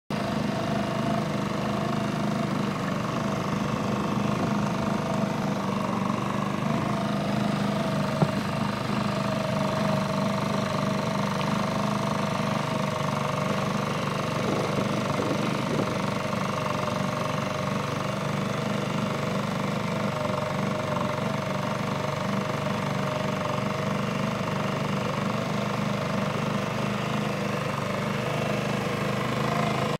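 A small boat engine running steadily at one speed, a constant mechanical hum with a few held tones and no change in pitch.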